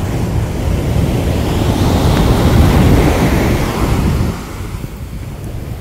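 Ocean surf: a wave breaking and washing in, building to a peak near the middle and dying away about four seconds in, with wind rumbling on the microphone.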